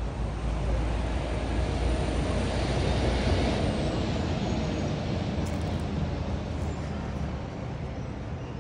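Steady road-traffic noise with a low rumble, swelling as a vehicle passes about three seconds in and easing off after.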